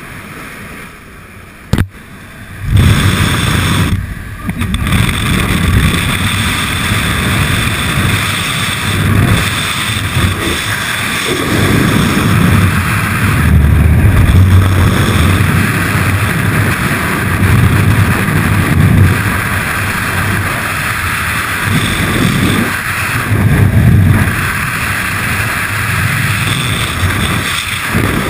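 Skydiving freefall: loud wind rushing over a body-mounted camera's microphone, rising and falling unevenly in strength. Before it, about three seconds in, the steadier, quieter noise of the aircraft cabin with the door open, broken by one sharp click.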